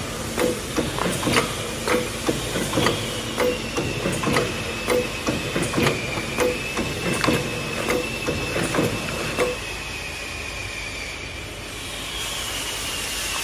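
Paper cup fan embossing machine running, pressing in a steady rhythm of repeated knocks and clicks, with a steady high whine underneath. The knocking stops about nine and a half seconds in while the whine carries on.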